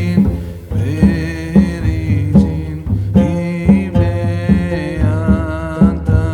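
Background music: a sung or chanted melody over a steady, regular beat.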